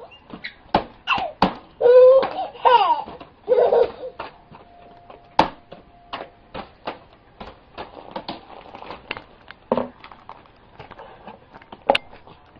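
A toddler giggling and laughing for a couple of seconds about two seconds in, over a string of sharp, uneven knocks from a wooden stick being banged about.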